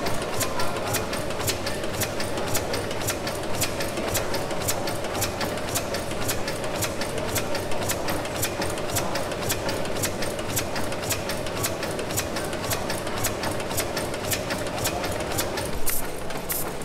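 1904 Sulzer tandem-compound steam engine running steadily, governed at 115 RPM, its moving parts making a rapid, even clicking over a steady hum. Near the end the hum stops and the clicking grows louder.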